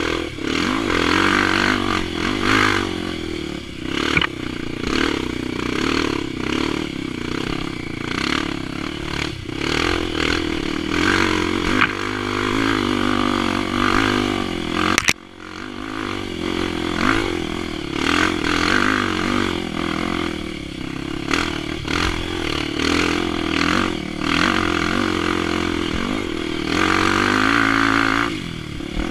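Single-cylinder four-stroke Honda XR 250 Tornado trail bike engine, bored to 280cc and running through an aftermarket ProTork Powercore 3 exhaust, working under load off-road with the revs rising and falling again and again as the throttle is worked, along with clatter from the bike. The sound breaks off sharply for a moment about halfway through.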